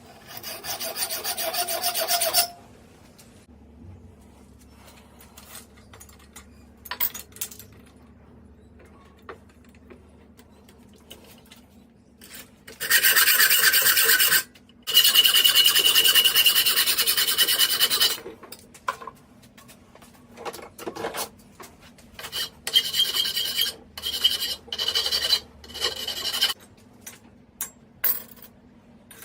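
Hand file rasping on forged steel in several spells of quick strokes, with pauses between them filled by light clicks and knocks.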